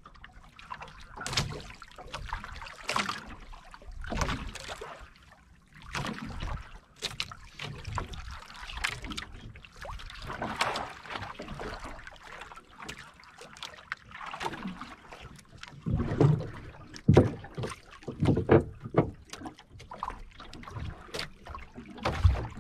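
Water slapping and sloshing against the hull and outriggers of a small outrigger boat in irregular splashes. A few heavier knocks come between about 16 and 19 seconds in.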